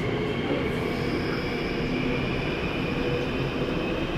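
Daegu Metro Line 1 subway train heard from inside the car while running between stations: a steady rumble of wheels on rail with a few high, steady whining tones from the drive. One whine grows stronger near the end.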